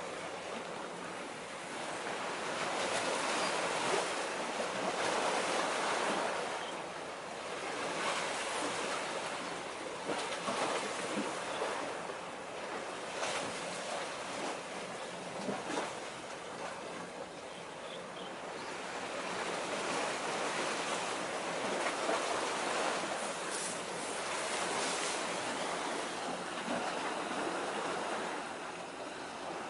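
Sea waves washing against a concrete tetrapod breakwater, the surf swelling and easing every several seconds, with some wind.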